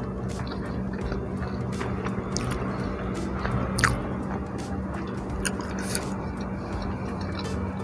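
Close-miked chewing and biting of martabak telur (fried egg-filled pastry) with rice: wet mouth clicks and a few sharp crisp bites, the loudest about four seconds in.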